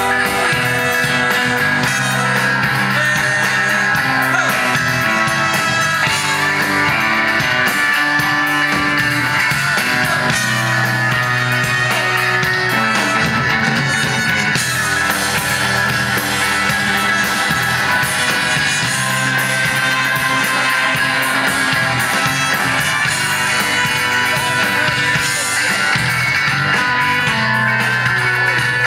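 Live rock band playing an instrumental break: trumpet over electric guitar, bass and drums, with no singing.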